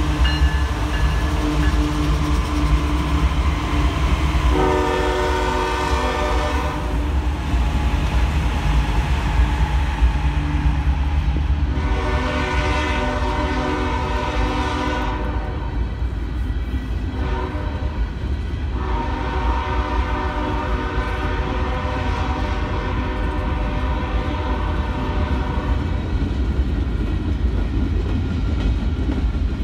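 Diesel-hauled freight train rolling past: first the trailing locomotives, then freight cars, with a steady low rumble of wheels on rail. The train's horn sounds from up ahead in four blasts: long, long, a shorter one, then a long held one. That is the long-long-short-long pattern blown for a grade crossing.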